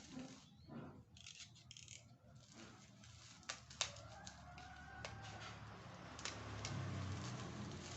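Rustling handling noise with a few sharp clicks and knocks, two of them close together about three and a half seconds in, as parts of a child bicycle seat are handled.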